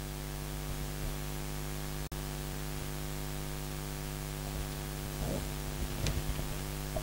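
Steady electrical mains hum with a layer of hiss, with a few faint low bumps about five seconds in.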